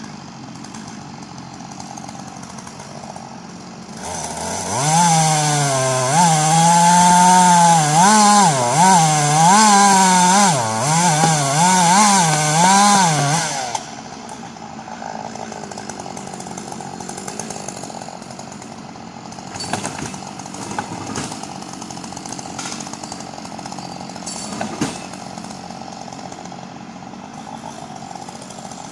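Two-stroke chainsaw idling, then revved up about four seconds in and held at high speed for some nine seconds, its pitch dipping and rising again and again as under cutting load, before dropping back to idle. A few light knocks sound during the later idle.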